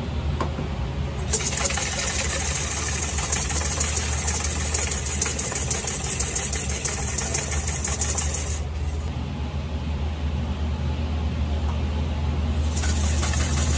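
Wire balloon whisk beaten fast against a stainless steel bowl, whipping egg whites into meringue: a rapid scraping clatter. It starts about a second in, stops a little past halfway and starts again near the end, over a steady low hum.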